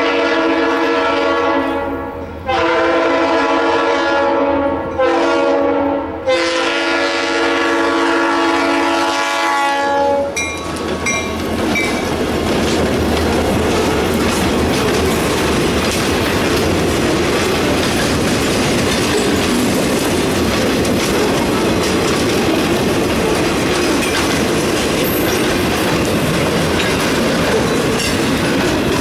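Freight locomotive's air horn, several tones at once, sounding the grade-crossing signal: long, long, short, long, ending about ten seconds in. After it, the freight cars roll past close by with steady wheel clatter and rumble.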